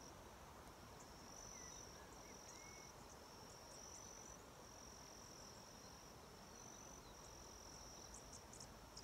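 Faint, high-pitched insect trilling in runs of about a second with short breaks, over quiet outdoor background; a couple of faint chirps about two seconds in.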